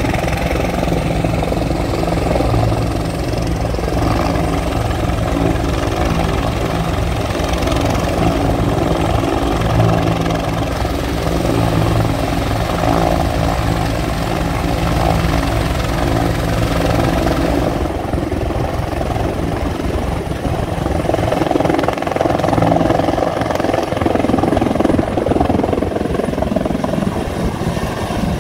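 Bell 412 military utility helicopter running with its rotor turning, then lifting off and climbing away. The rotor and turbine noise grows louder in the last few seconds.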